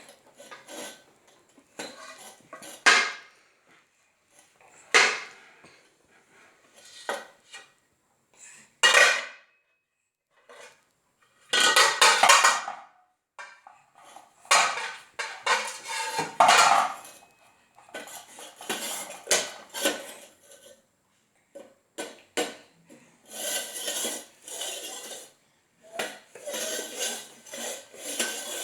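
Irregular clattering and clinking of hard objects, in short bursts broken by pauses, growing denser and more continuous over the last few seconds.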